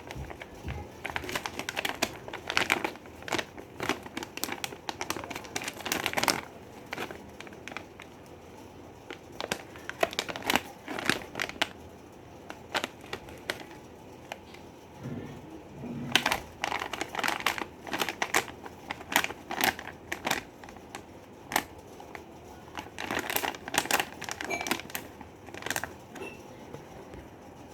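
Plastic wrapper of M&M's chocolate crinkling as it is handled and opened by hand, in bursts of sharp crackles with a few quieter pauses.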